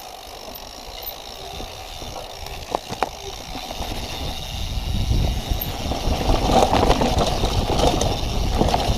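Mountain bike rolling over a rocky trail, with tyre rumble and the bike rattling over rough ground. It starts quiet with a couple of sharp knocks, then grows louder from about halfway as speed picks up.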